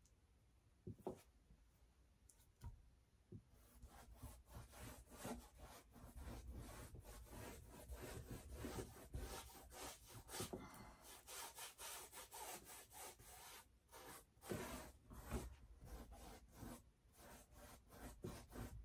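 Faint scrubbing and scratching of a paintbrush worked back and forth on a stretched canvas. There are a few separate strokes at first, then quick, continuous strokes from about four seconds in.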